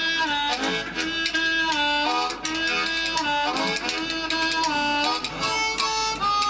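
Amplified blues harmonica playing held and sliding notes, with the rhythmic clacking of bones.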